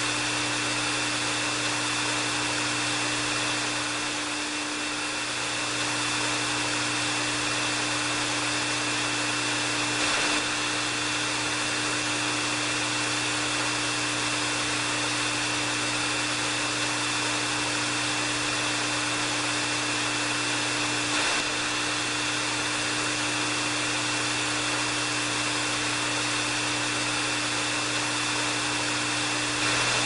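Hair dryer running steadily: a continuous rush of air over a low motor hum and a thin high whine, briefly a little softer about four seconds in.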